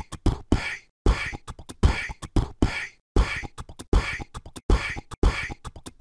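Outro music: a bare, dry percussion beat of low kick-like thumps and sharp snare-like hits, the same short pattern repeating about every two seconds.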